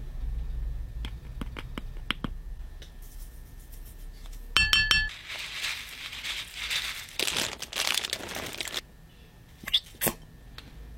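Slime ingredients going into a glass bowl. A plastic spoon scrapes and taps in a jar of glitter, then small beads pour into the bowl as a steady rush for about three seconds past the middle, with a few sharp clicks against the glass near the end.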